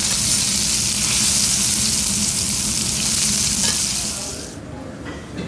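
Wagyu steak sizzling in fat on a teppanyaki griddle, a loud, dense hiss that dies down about four and a half seconds in.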